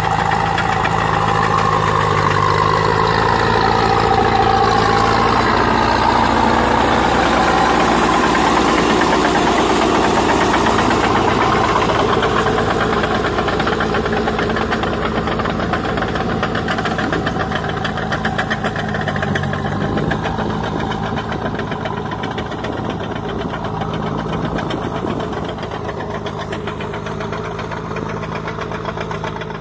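Massey Ferguson tractor on crawler tracks, its diesel engine running steadily under load while it drags a rotavator through a flooded rice paddy. It is loudest in the first half and fades gradually as the tractor moves away.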